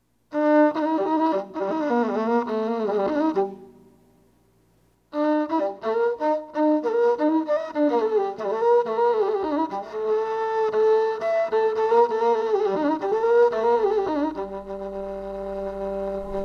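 Solo melody on a masenqo, the Ethiopian single-string bowed fiddle, with sliding, wavering ornaments. It plays a short phrase, pauses for about a second and a half, then plays a longer phrase that ends on a held note.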